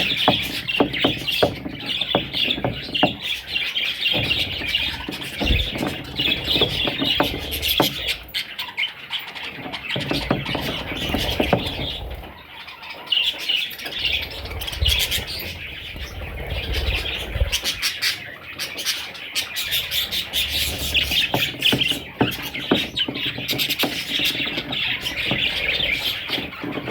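Pet budgerigars chirping and chattering without a break, a dense twittering warble with sharp little squawks and clicks.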